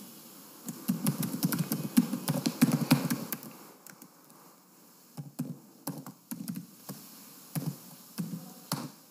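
Computer keyboard typing: a quick run of keystrokes lasting about three seconds, then after a short pause a slower scatter of single keystrokes.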